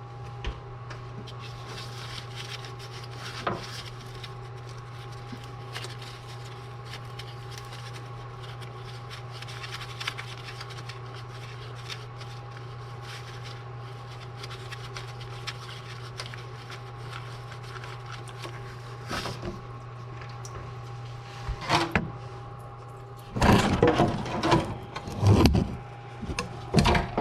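Hand work in an engine bay: faint scrapes, rubs and small clicks of tools and parts being handled over a steady hum. A cluster of louder knocks and clatter comes near the end.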